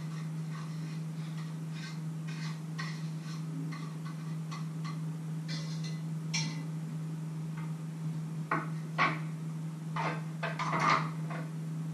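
Kitchen utensils clinking, scraping and tapping against pans and dishes, light at first, with several sharper knocks in the second half. A steady low hum runs underneath.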